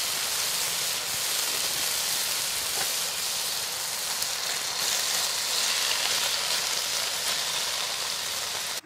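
Chicken livers, bacon and mushroom frying in butter in a pan, a steady sizzle with a few faint pops. It cuts off abruptly near the end.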